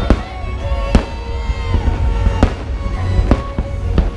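Fireworks going off: several sharp bangs about once a second, with music playing underneath.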